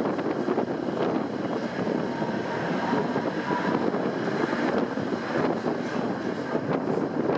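Tram running along the street, heard from inside the car: a steady rumble of wheels on rails and running gear, with a faint high whine partway through.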